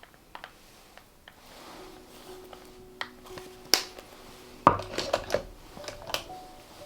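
Sharp clicks and taps of small plastic makeup packaging being handled and set down on a hard surface. The two loudest come a little before and just after the middle, followed by a quick cluster of lighter taps.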